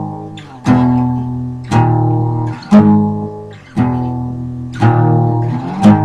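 A guitar strums slow chords, about one stroke a second, each chord left to ring out before the next.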